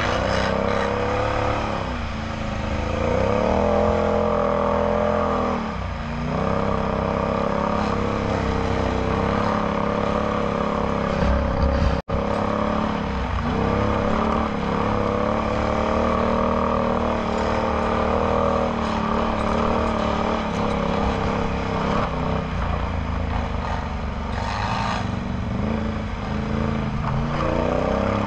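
Can-Am Outlander X MR 850 ATV's V-twin engine running through a Yoshimura slip-on exhaust on a trail ride, its pitch rising and falling as the throttle is opened and eased off between steadier stretches.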